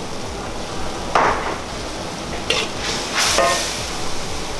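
Perforated metal spatula stirring and scraping against a wok of shrimp simmering in sauce, over a steady sizzle. There are three louder scrapes: about a second in, at about two and a half seconds, and just after three seconds, the last with a brief metallic ring.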